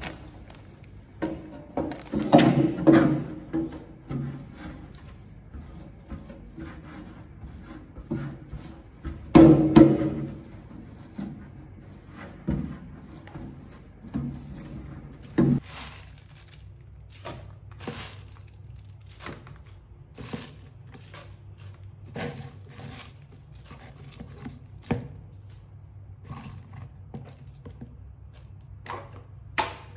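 A clear plastic storage bin and grocery packs are handled and set down on a tiled floor with a few dull thunks, then many light clicks and rustles as spinach leaves are picked over a plastic colander.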